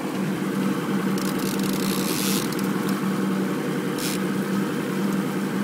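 Boat motor running steadily, a constant hum. A short hiss comes about two seconds in and a sharp click about four seconds in.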